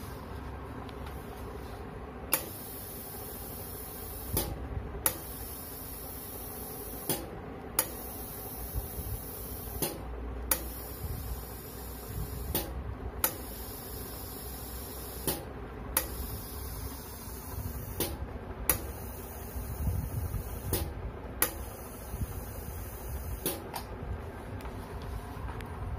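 Flovell F01D12 pneumatic fluid dispenser cycling on its interval timer. Its valve clicks open, compressed air hisses for about two seconds while a dot of glue is pushed through the syringe needle, then it clicks shut for a little over half a second. The cycle repeats about every 2.7 s over a steady low hum.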